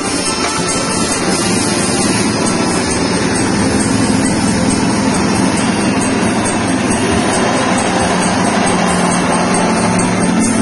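Small air-cooled single-cylinder petrol engine running steadily, driving a stainless-steel soybean splitter and hull separator.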